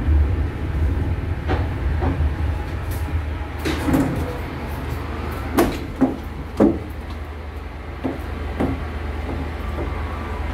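Inside a stopped ČKD Tatra T6A5 tram: a steady low hum from the car, with a string of sharp knocks and clatters as the folding doors open and passengers step down the entrance steps, the loudest a few knocks about two-thirds of the way through.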